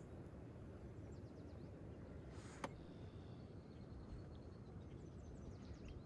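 Faint rural ambience: a low steady rumble of background noise with faint bird chirps in quick short series, and one sharp click about two and a half seconds in.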